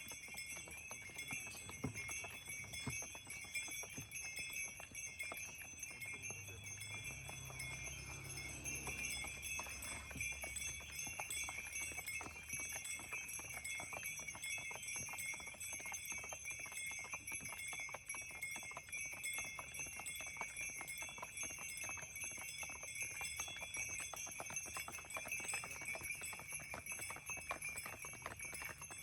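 Hooves of a carriage horse clopping on a snowy road, with harness bells jingling continuously.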